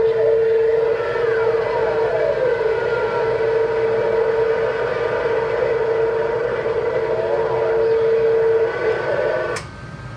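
CB radio speaker receiving a strong skip signal: a loud steady whistle, with a few whistles sliding down in pitch across it, over static hiss. This is the heterodyne of carriers keyed on the channel. It cuts off about nine and a half seconds in, leaving fainter static.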